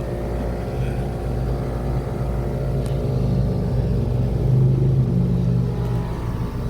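Trane XR16 heat pump's outdoor unit running in cooling mode: a steady, loud hum from the compressor along with the condenser fan's airflow.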